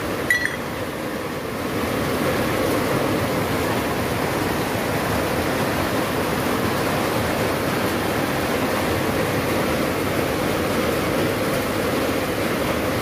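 Steady rain hiss. Near the start, a light metallic clink as a small part is set down on the concrete floor.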